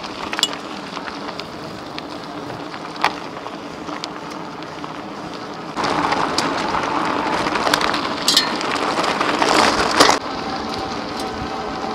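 E-bike tyres rolling and crunching over a gravel road, with a few sharp pings of loose stones. The crunching grows louder about six seconds in as the bike picks up speed, then eases about ten seconds in.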